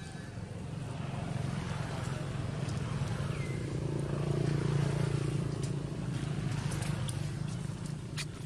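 A motor vehicle's engine passing by: a low, steady hum that grows louder to a peak about halfway through, then fades.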